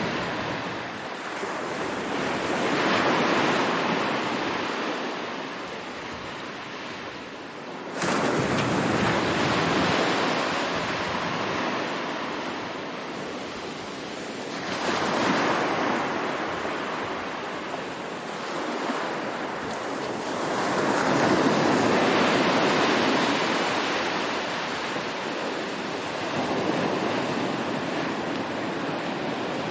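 Sea waves breaking and washing up the shore in slow surges, each swelling and falling away over several seconds, about four in all; one surge comes in abruptly about eight seconds in.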